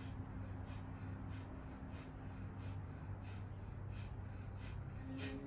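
Rapid, forceful breathing in a yoga breath-work exercise: short, sharp exhales about two a second over a steady low hum.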